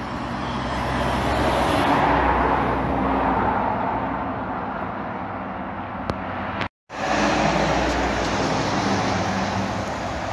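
Highway traffic heard from above: a lorry's tyres and engine swell as it passes beneath and then fade. The sound cuts out abruptly for about a quarter second, and then another heavy vehicle passes loudly.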